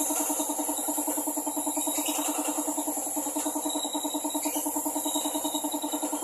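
Compressed-air paint spray gun hissing steadily while spraying a car body, over a machine hum that pulses about ten times a second.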